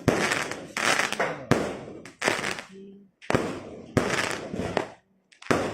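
Fireworks going off in quick succession: about seven sharp bangs, each trailing off in crackle, with two brief lulls.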